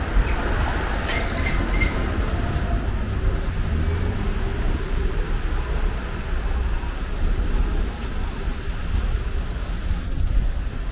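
Town-street ambience: a steady low rumble of road traffic.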